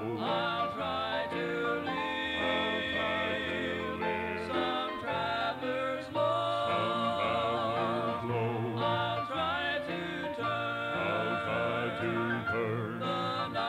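A gospel vocal group singing a hymn in harmony from a 1983 cassette recording, the voices wavering with vibrato over instrumental backing.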